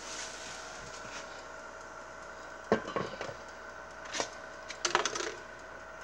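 Knocks and clatters of a plastic air fryer basket and pan being pulled out and handled, several sharp hits in the second half, over a steady hum.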